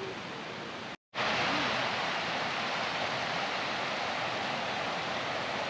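Rain-swollen woodland creek rushing over rocks, a steady noise of flowing water. It is fainter for the first second, then after a short break comes back louder and closer.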